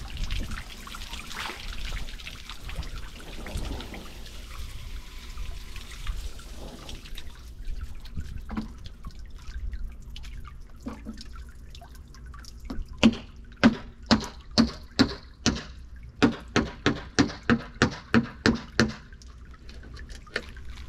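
Shallow water sloshing and dripping around nurse sharks moving at the surface. Past the middle comes a quick run of about fourteen sharp, wet smacks, two to three a second, before the water settles again.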